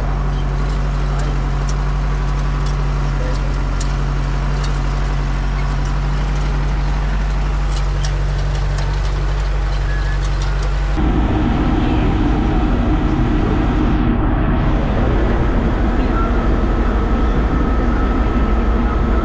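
Fendt tractor engine running steadily, heard from inside the cab. About eleven seconds in the sound changes abruptly to a louder, rougher running as the tractor tows a loaded trailer.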